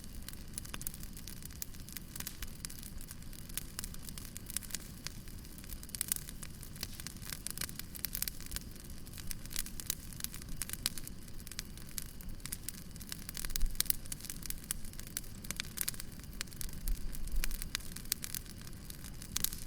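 Fire crackling: dense, sharp little pops over a low steady rumble, with two brief heavier low thuds, one about two-thirds of the way in and one near the end.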